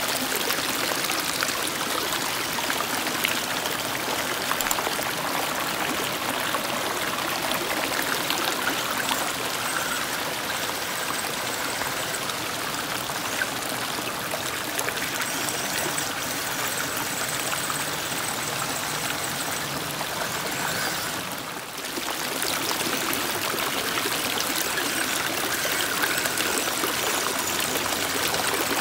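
Shallow rocky stream running and trickling over small cascades, a steady rush of water. It dips briefly about three quarters of the way through.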